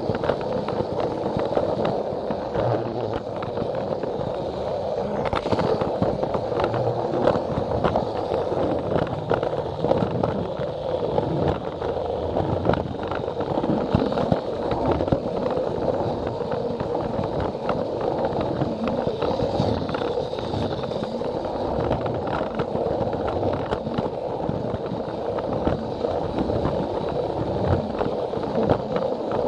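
Plarail battery-powered toy train running along plastic track, heard close up from on board: a steady motor-and-gear whir with wheels clicking over the rail joints many times.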